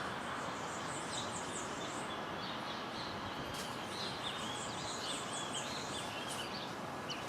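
Small birds chirping repeatedly over a steady background hiss, the chirps growing busier past the middle.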